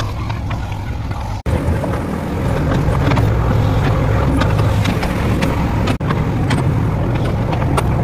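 JCB 3DX backhoe loader's diesel engine running steadily under load as the backhoe arm digs and spreads soil, with scattered clicks and knocks. The sound drops out for an instant twice, about a second and a half in and again about six seconds in.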